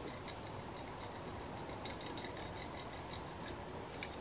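Faint light tapping and clicking of fingers on a Sanctuary Spa gift-set jar as it is turned in the hands, scattered small ticks over a steady low hiss.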